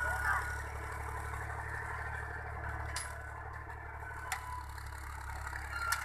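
Fiat 480 tractor's diesel engine running steadily under load while ploughing: a low, even hum, with two sharp clicks about three and four and a half seconds in.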